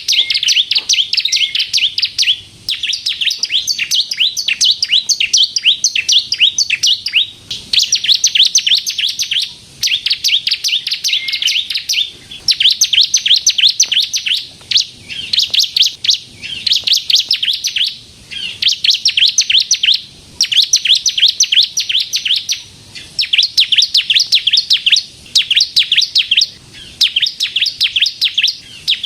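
Ciblek kristal (bar-winged prinia) singing continuously in full song: rapid, high-pitched chattering trills in runs of about two seconds, each followed by a brief pause, over and over.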